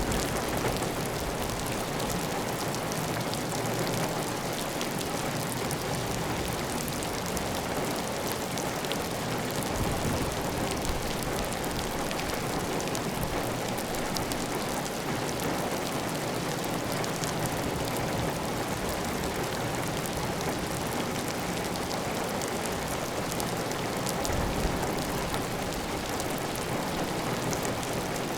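Heavy, steady rain pattering on a clay tile roof with a constant run of water off the roof edge, individual drops ticking over the dense hiss. A few brief low rumbles rise under it, about a third of the way in and again near the end.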